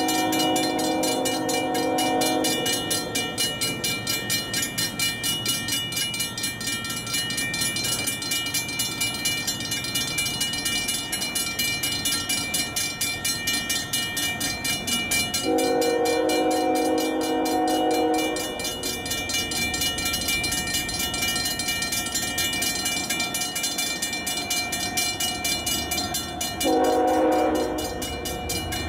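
Locomotive horn sounding three blasts for the grade crossing: one about two and a half seconds long at the start, another about halfway through, and a shorter one near the end. Between the blasts, grade-crossing bells ring steadily, and a low rumble builds from about two-thirds of the way in.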